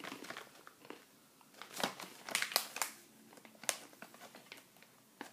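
Dry-roasted, sesame-coated chickpeas crunching as they are chewed close to the microphone: irregular crisp crunches, loudest and most frequent a couple of seconds in.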